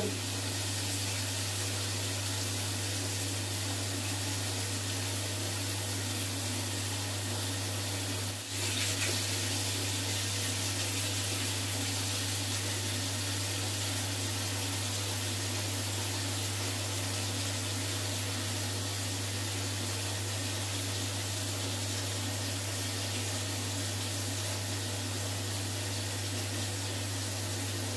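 Bath tap running steadily into a bathtub half full of foamy water, with a low steady hum underneath. The flow dips briefly about eight seconds in.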